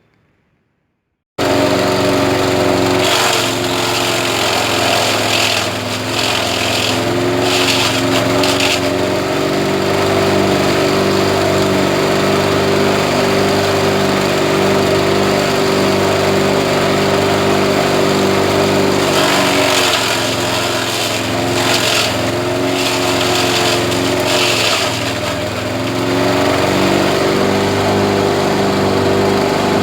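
Grass chopper machine running steadily at speed. Its sound cuts in suddenly about a second and a half in. Several bursts of louder chopping noise come through, and the machine's note dips briefly a few times, as when grass is fed through the blades.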